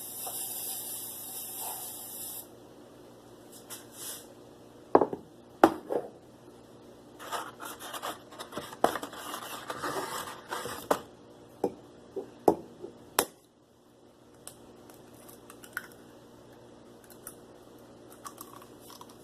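Aerosol cooking spray hissing for about two and a half seconds as the inside of a coffee mug is coated, then scattered knocks and scraping of kitchen items being handled.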